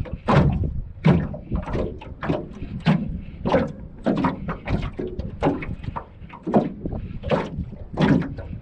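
Small waves slapping and knocking against a metal boat hull at irregular intervals, about one to two slaps a second.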